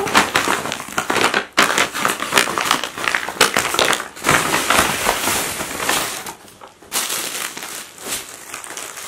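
Brown paper shipping bag crinkling and rustling as it is pulled open by hand, with a short lull about six and a half seconds in.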